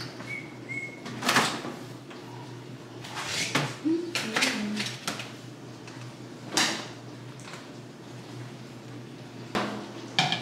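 Laundry closet cabinet doors opened and clothes handled at a stacked front-loading dryer and plastic laundry basket: scattered knocks, thumps and rustles over a steady low hum. Two short high beeps sound about half a second in.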